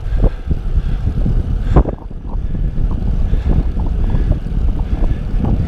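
Wind buffeting the microphone of a camera on a road bike descending at speed: a loud, gusty low rumble mixed with road noise. A short knock comes a little under two seconds in.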